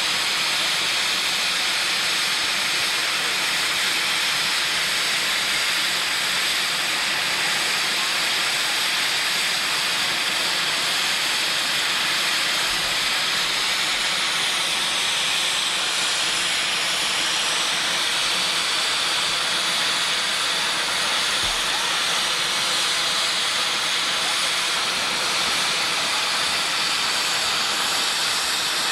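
Norfolk & Western 611, a class J 4-8-4 steam locomotive, hissing steam steadily and loudly.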